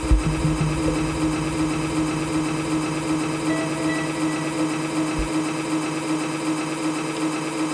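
A steady buzzing drone held on one note from the band's amplified instruments, with no drum beat.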